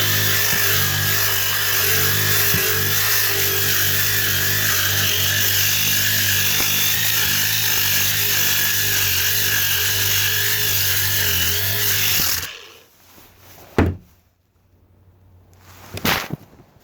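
A power tool running steadily while it works the boat's fiberglass stringers, cutting off about twelve seconds in, followed by a few sharp knocks.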